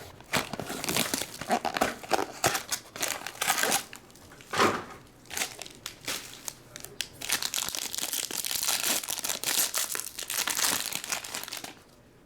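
Wrapper and packaging crinkling and tearing as trading-card packs are opened and handled, a dense run of crackly rustles that dies away near the end.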